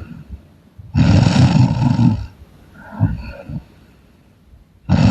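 A woman snoring loudly. A long, rough snore comes about a second in, a shorter, quieter one follows a second later, and the next loud snore begins near the end.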